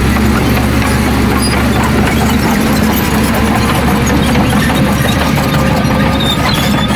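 Heavy diesel engine of earthmoving machinery running steadily, with a dense low rumble and scattered light rattles.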